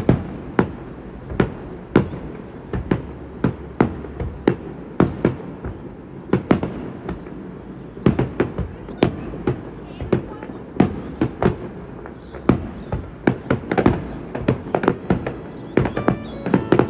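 A long run of sharp bangs or pops at irregular intervals, roughly two a second, over a steady low rumble.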